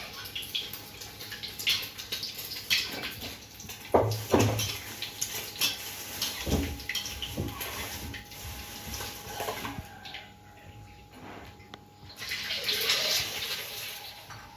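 Water running from a tap, with scattered knocks and clinks of kitchen utensils; the water eases off about ten seconds in and runs again a couple of seconds later.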